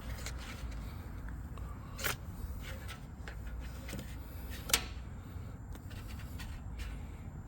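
A few sharp clicks and knocks over a steady low rumble, two of them louder, about two seconds in and just before five seconds in.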